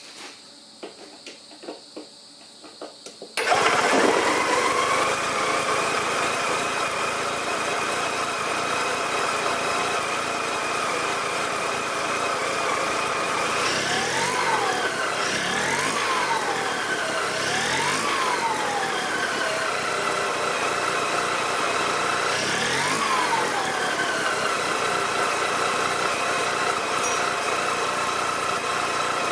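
Sachs KM48 single-rotor Wankel engine catching suddenly about three seconds in after a few light clicks, then running steadily. Four quick throttle blips around the middle make the revs rise and fall back each time. It runs on a freshly fitted Mikuni 22 mm carburettor and home-made intake manifold.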